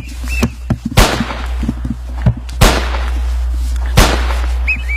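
Three loud gunshot-like bangs about a second and a half apart, each trailing off in an echo.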